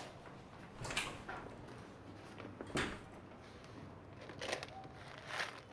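A few soft, spaced knocks and thuds in a quiet room: footsteps and a door being handled.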